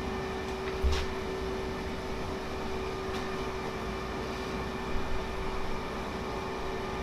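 Steady hum of shop machinery. A sharp metallic click comes about a second in and a few light clinks around five seconds, as a steel hex nut is spun by hand onto a freshly cut thread on a steel rod to test its fit.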